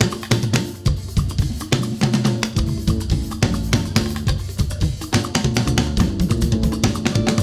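Live party band music: drum kit and percussion playing a busy, steady beat over a bass line.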